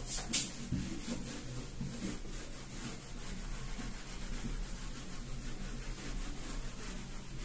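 A bare hand rubbing dry-erase marker writing off a whiteboard, a steady swishing rub. Two short sharp taps come right at the start.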